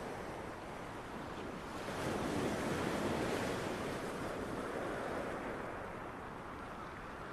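Sea waves washing in: a steady surf hiss that swells a couple of seconds in and then slowly eases off.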